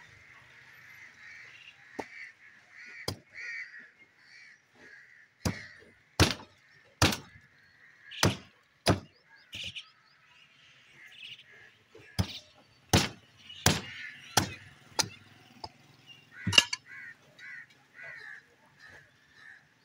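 Heavy butcher's cleaver chopping into the bone of a skinned bovine head on a wooden block: about a dozen hard strikes in two irregular runs. Crows caw repeatedly in the background.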